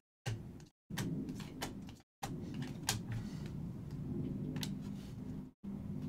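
Stacks of trading cards being handled: cards slid and flipped through by hand, with a few sharp clicks as cards and stacks are set down on the table.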